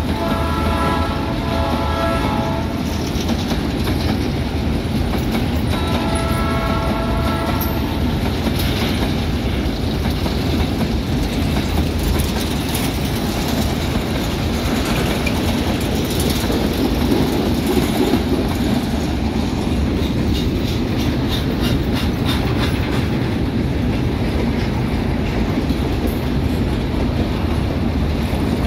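Freight train of empty grain hopper cars rolling past, a steady rumble with clicking of wheels over rail joints. A diesel locomotive horn sounds at the start, stopping about three seconds in, and blows again briefly about six seconds in.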